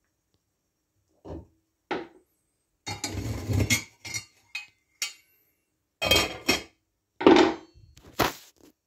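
Wire kitchen tongs knocking, scraping and clinking against an enamel pot in a series of separate clatters. Near the end the enamel lid goes onto the pot with a loud clank.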